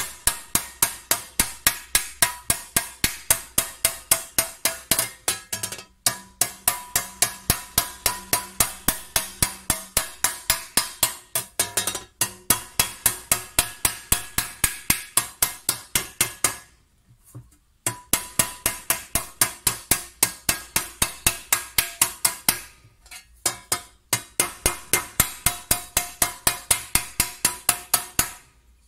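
Small round-headed hammer striking a copper tea tray held against a block, raising the copper sheet: quick steady blows about four a second, each with a short metallic ring. The blows come in runs broken by short pauses, the longest about two-thirds of the way through.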